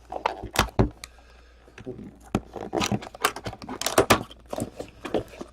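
Packaging of a sealed trading-card box being opened by hand: irregular crinkling, tearing and clicking of wrap and cardboard, busiest in the middle stretch.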